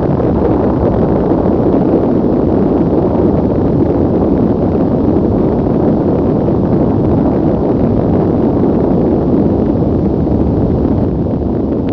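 Thunderstorm: a loud, steady low rumble with no sharp cracks.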